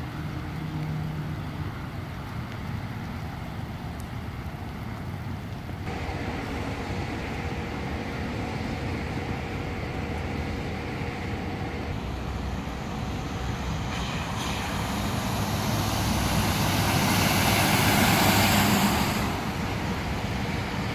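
Outdoor rushing noise of running floodwater and wind on the microphone. It swells to a loud hiss toward the end, then drops off sharply.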